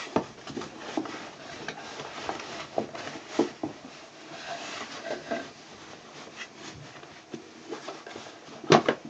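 Rummaging through objects: scattered light knocks, clicks and rubbing as things are picked up and moved, with a couple of louder knocks near the end.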